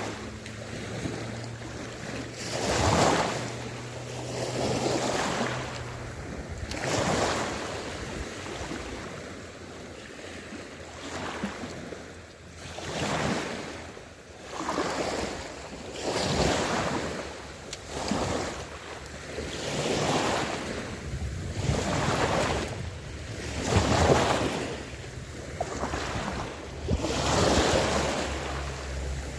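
Small waves washing in one after another, each swelling and fading every couple of seconds, with wind buffeting the microphone.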